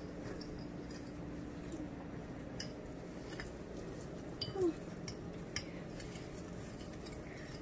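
Faint, scattered clicks and light knocks of raw chicken drumsticks being worked by hand against a ceramic plate, over a steady low hum. A short sound dips in pitch about halfway through.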